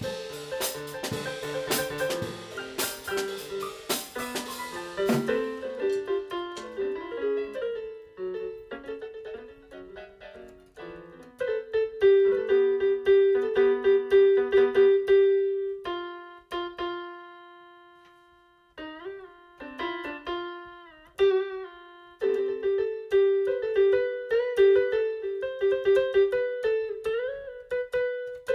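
Electric keyboard music played in held and repeated notes, a few of them bending in pitch; drum hits sound with it for the first five seconds or so, then stop.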